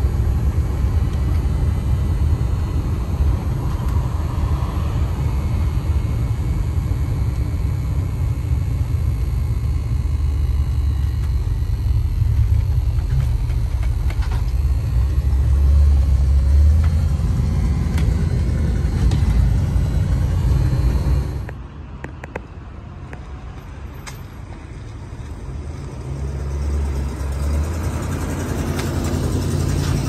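Old GMC Sportscoach motorhome under way, heard from its cab: a steady low engine drone with road noise. About two-thirds through it drops abruptly quieter, then builds again near the end.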